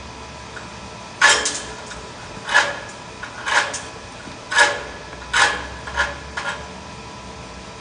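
A series of about seven sharp knocks, roughly one a second, each with a brief metallic ring, over a steady shop hum.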